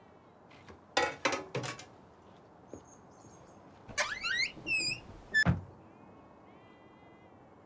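A door rattling and its hinges creaking, then shut with a heavy thud. A sheep bleats faintly near the end.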